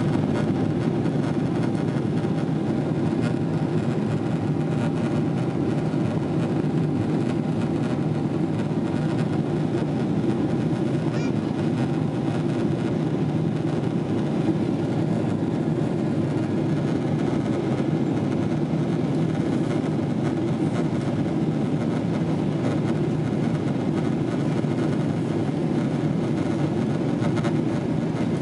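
Jet airliner cabin noise during the climb-out: the steady low rumble of the engines and the air rushing past the fuselage, even in level with no change.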